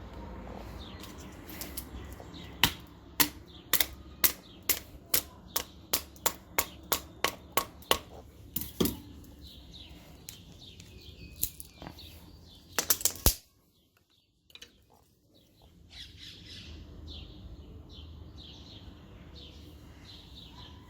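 Batoning with a slip-joint folding knife: a wooden baton knocks on the knife's spine to drive the blade through a piece of wood, about a dozen sharp knocks at roughly two a second, then a few more a little later. Birds chirp faintly in the background near the end.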